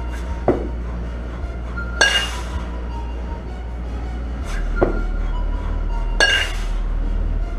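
Kettlebell jerk reps, about one every four seconds. Each rep gives a short sharp clink and then, about a second and a half later, a louder rushing burst as the bell is driven overhead and brought back down to the chest.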